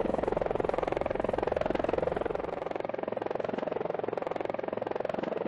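Helicopter running overhead, its rotor making a steady rapid chop.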